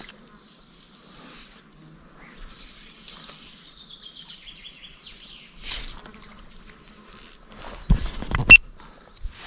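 Hand knocking and rubbing against the camera: a quick run of loud knocks about eight seconds in. Earlier there is only a faint high sound sliding slowly down in pitch.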